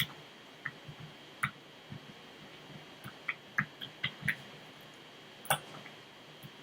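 Light, irregular clicks and ticks of a lock pick and tension wrench working the pin stack inside a padlock, the sharpest click near the start and another about five and a half seconds in.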